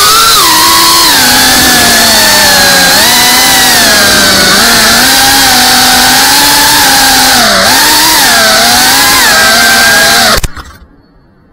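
GEPRC CineLog35 cinewhoop's brushless motors and ducted propellers, heard from the camera on board, make a loud buzzing whine whose pitch rises and falls with the throttle. The whine cuts off suddenly near the end as the drone lands and its motors stop.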